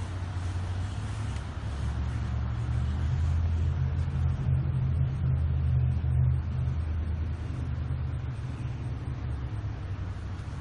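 Caterpillar 140H motor grader's diesel engine idling, a steady low rumble that grows louder for a few seconds in the middle and then eases.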